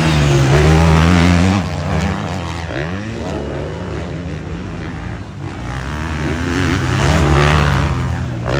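450cc four-stroke motocross bikes running on a dirt track, engines revving up and down as they ride past. The sound is loudest in the first second and a half and again about seven to eight seconds in, with a quieter stretch between.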